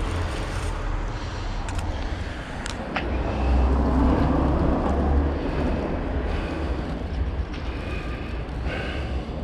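Road traffic noise with wind rumbling on the microphone while cycling. It grows louder for a couple of seconds about four seconds in.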